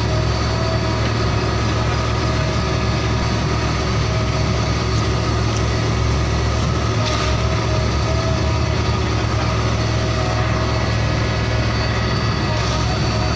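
Truck engine idling steadily, a low even hum with no change in pitch.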